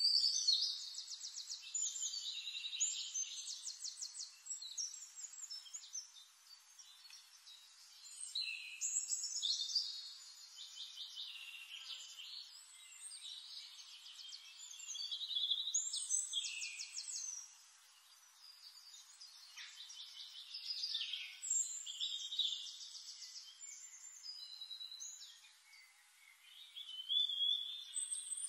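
Songbirds singing in a nature-sound recording. Bright, rapidly trilled song phrases swell up about five times, roughly every six seconds, with softer chirping between them.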